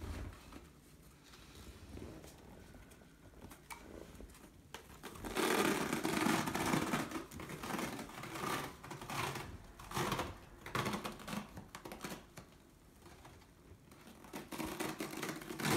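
Self-adhesive elastic bandage crackling as it is peeled off itself and stretched around a leg stump. The crackle is loudest for about two seconds some five seconds in, then comes in shorter bursts.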